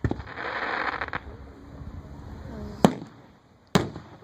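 Aerial fireworks going off: a bang at the start followed by about a second of crackling, then two sharp bangs near the end, about a second apart.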